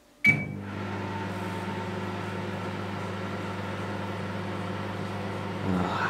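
Elektrohelios HC776 microwave oven starting up: a short beep and click as START is pressed, then the steady hum of the oven running and heating.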